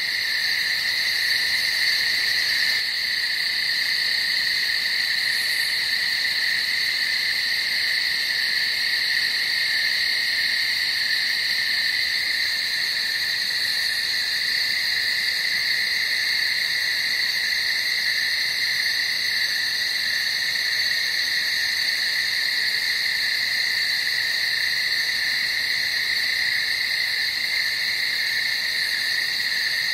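Night ambience: a dense chorus of calling animals, a steady high-pitched drone that never breaks.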